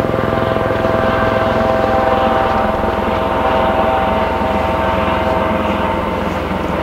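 Lava fountains at the Fagradalsfjall eruption spouting and spattering from a lava lake, making a loud, continuous rumble. A faint steady whine of several pitches runs underneath.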